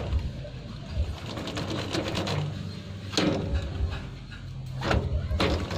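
Motorcycle drive chain clinking against the rear sprocket as it is fitted and worked around by hand: a few scattered metal clacks, the sharpest a little past halfway through and again near the end.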